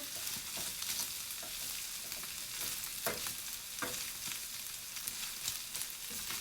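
Minced pork, onion and garlic sizzling steadily in hot sesame oil in a pan as they are stirred together, with a few sharp scrapes of the utensil against the pan about three and four seconds in.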